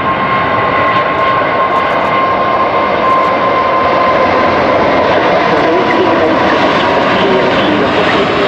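Emirates Airbus A380-800's four turbofan engines at takeoff thrust: loud, steady jet noise with a thin whining tone that fades out after about four seconds.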